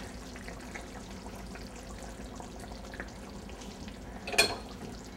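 Chicken in sauce simmering in a stainless steel sauté pan, a steady low sizzle, while sour cream is poured over it. A short clatter, like a bowl or spoon knocking, comes about four seconds in.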